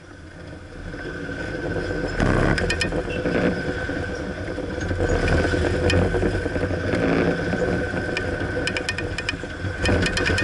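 Car driving along a city street, heard from inside the cabin: steady engine and road noise that fades in over the first couple of seconds, with short runs of quick light clicks, one a few seconds in and a longer one near the end.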